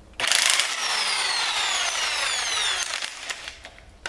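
A power tool spins a stuck cylinder-head stud out of a Ford 302 V8 block. It gives about three seconds of gritty grinding with a high whine falling in pitch, then fades.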